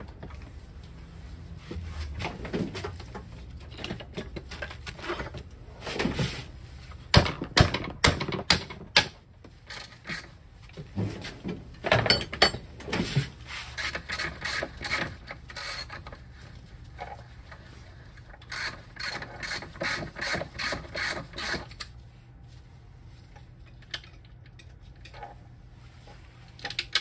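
Ratchet wrench clicking in bursts as the rear hub motor's axle nut is loosened, with a run of loud, sharp clicks about seven to nine seconds in.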